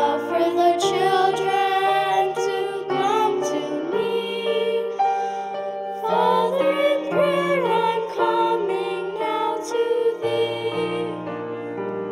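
Music: singing with piano accompaniment, the voice holding and bending notes with vibrato over sustained piano chords.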